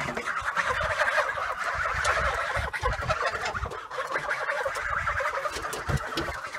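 A flock of domestic geese honking and cackling together, many calls overlapping without a break.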